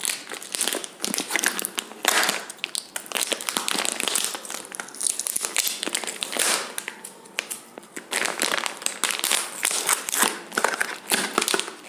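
Plastic packaging crinkling and crackling as it is handled and pulled apart, in uneven spurts.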